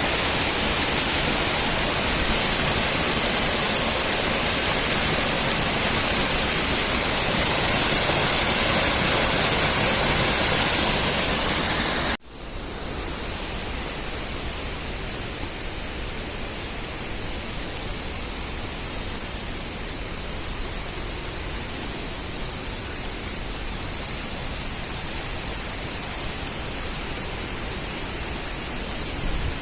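Rushing water from a stream or waterfall, a steady loud rush. About twelve seconds in it cuts suddenly to a quieter stretch of running water with a steady high-pitched hiss on top.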